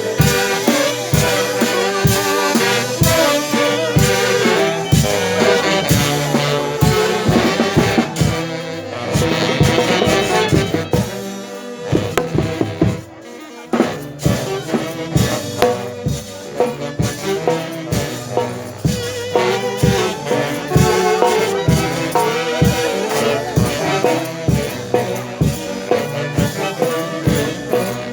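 Live band music: brass such as trumpets and saxophones playing over a steady drum beat. About halfway through, the band drops briefly to a quieter break before the full sound returns.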